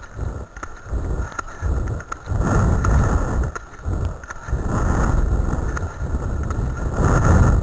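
Wheels of a dog-team training rig rolling fast over a gravel track behind a running husky team: a rough crunching road noise that swells and eases every second or so.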